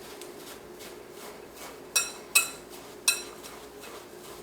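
A spoon stirring dry flour, oats and raisins in a mixing bowl, with soft scraping and three sharp clinks against the bowl about two to three seconds in.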